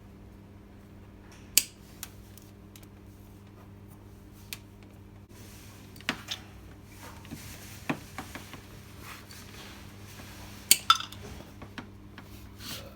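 Scattered sharp clicks and metallic clinks of hand tools and small parts being handled while working on a washing machine timer's wiring, the loudest about a second and a half in and a quick pair near the end, over a steady low hum.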